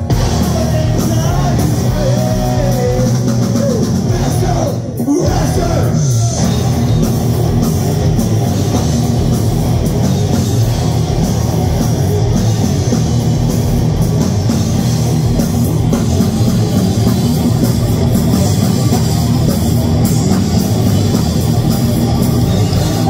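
Live heavy metal band playing loud: distorted electric guitars over bass and drums, with a short break about five seconds in.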